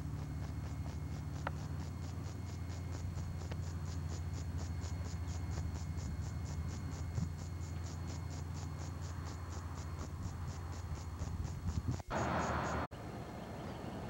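High-pitched insect chirping in an even rhythm, about four short pulses a second, over a steady low hum. About twelve seconds in, the chirping stops with a short burst of hiss and a sudden dropout.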